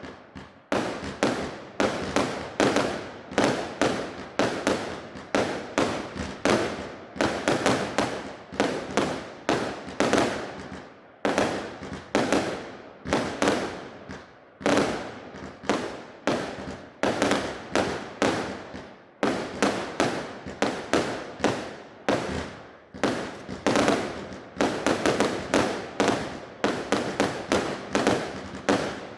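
A 100-shot firework cake with 0.8-inch tubes firing shot after shot in rapid succession, about three a second. Each shot is a sharp bang that dies away in a fraction of a second, with a few brief pauses between volleys.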